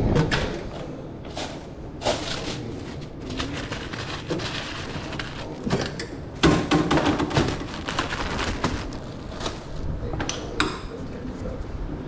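Irregular knocks, clicks and rustling of hands working a hot dog stand while making up an order, with a busier run of clatter about six and a half seconds in.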